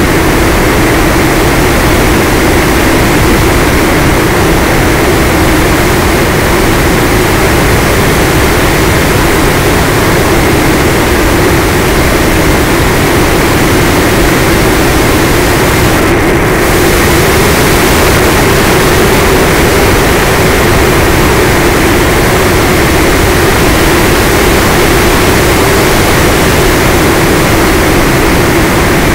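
Electric motor and propeller of an FPV plane running steadily at cruise throttle, a constant drone under loud airflow noise on the onboard camera.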